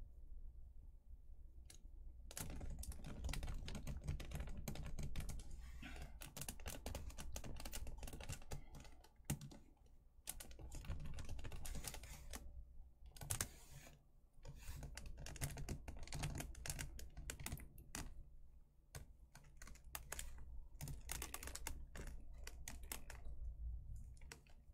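Fast, irregular clicking, tapping and rattling of hard plastic statue parts being handled and pressed together as a piece is worked into its socket. It starts about two seconds in and goes on with a few short pauses.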